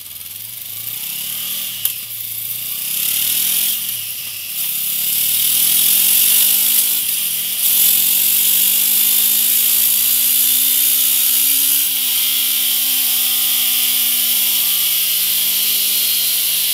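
Honda CB500X's 471 cc parallel-twin engine through its stock exhaust, accelerating on a dyno. The note climbs with short breaks at gear changes, then rises in one long pull over a loud hiss from the rear tyre spinning the roller.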